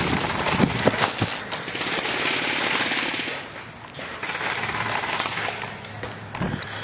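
Airsoft M60 firing long full-auto bursts, a rapid even clatter, with a short break about three seconds in.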